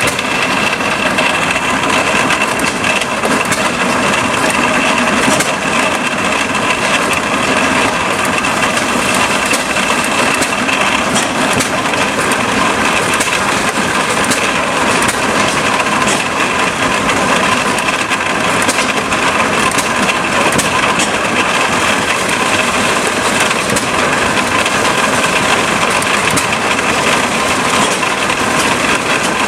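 A McCormick corn sheller running steadily while it shells ear corn. A constant mechanical whine runs under a dense rattle of cobs and kernels, with scattered sharp ticks.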